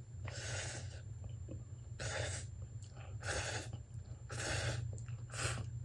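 A person breathing hard through the mouth and nose: about five short, sharp breaths a second or so apart, the reaction to the burn of ghost pepper noodles.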